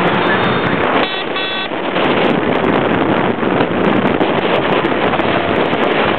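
A heavy exceptional-transport truck passing close, its rumble mixed with a loud rush of wind on the microphone. Two short vehicle-horn toots sound about a second in.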